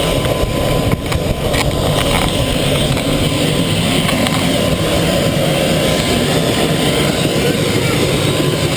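Helicopter engine and rotor running steadily, a loud constant mechanical noise.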